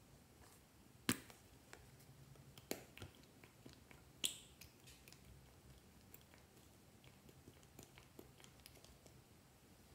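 A few sharp plastic clicks from handling a cosmetics tube, the loudest about a second in and about four seconds in, then faint ticks and soft taps as dots of BB cream are squeezed onto slime.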